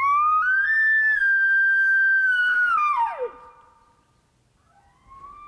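Elk bugle blown on a hunter's call: a whistling note that climbs and holds high for about two seconds, then drops steeply away. A fainter high note begins near the end.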